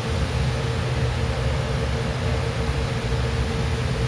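Steady machine hum and hiss with one constant mid-pitched tone, the continuous running noise of aquarium pumps or filtration equipment.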